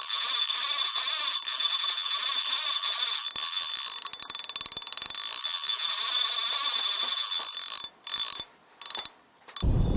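A fast, high-pitched ratcheting buzz from a clicking mechanism, with no low end. It breaks up into short gaps near the end. About half a second before the end it gives way to wind rumbling on the microphone.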